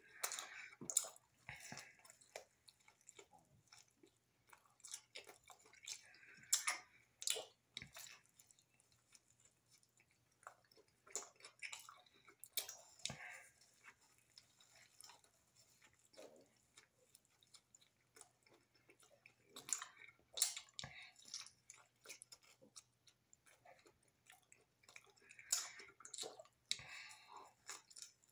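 A person biting and chewing a grilled chicken bacon ranch flatbread, faint wet mouth clicks and crackles in irregular clusters with quieter pauses between.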